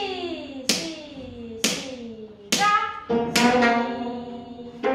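Gayageum strings plucked one note at a time, about six notes, several bending downward in pitch after the pluck, with a low note ringing beneath.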